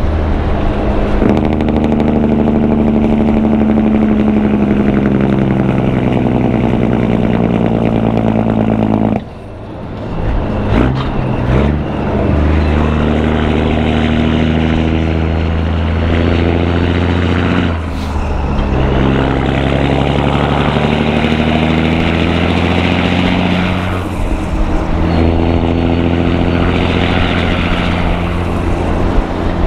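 Caterpillar 3406E diesel in a heavily loaded semi truck, heard through 6-inch stacks and an Aero Turbine 5050xl muffler. Its exhaust note falls in pitch again and again as the rpm drops, with a sudden brief break about nine seconds in and shorter breaks near eighteen and twenty-four seconds.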